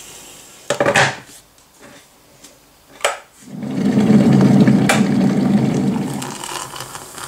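Kitchen clatter, a sharp click, then a coffee machine running with a loud steady buzz for about three seconds.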